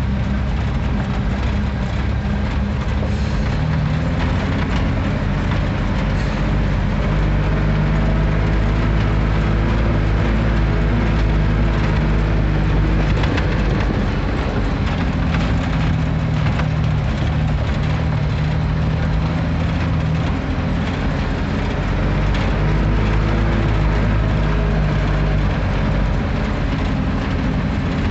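Engine of a Mercedes-Benz 1113 truck loaded with soybeans, running steadily with its pitch wavering a little, heard from the cab as it rolls down a rough dirt road. The body rattles constantly over the bumps.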